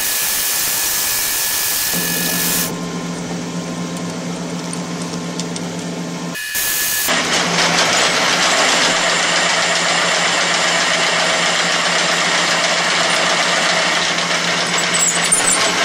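Metal lathe turning a solid steel workpiece while the cutting tool takes a facing cut across its end to square it. A steady hum from the lathe sits under a high hissing cutting noise. The cutting noise drops away about three seconds in, comes back in a short burst, and runs steadily again from about seven seconds until just before the end.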